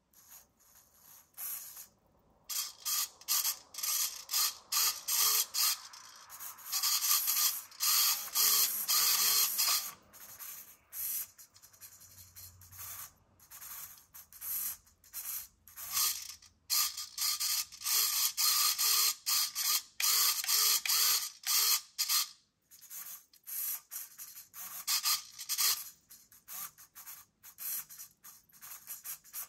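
Small hobby servo motors whirring in many short stop-start bursts as they are swung back and forth from a game controller's joystick.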